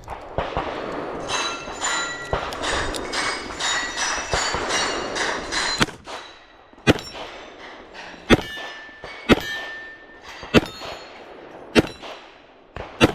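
Steel targets clanging and ringing for about six seconds, then a string of six sharp shots a little over a second apart, several followed by a short metallic ring as the round strikes a steel plate.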